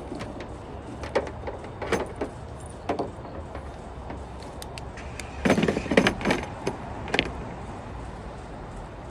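Scattered clicks and knocks, then a louder cluster of knocks and clatter about five and a half seconds in, over a low steady background hum.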